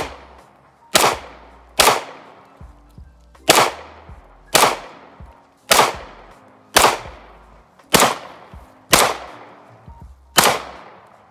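Handgun fired in slow single shots, about ten in all, roughly one a second with uneven gaps. Each shot is a sharp crack that trails off in an echo.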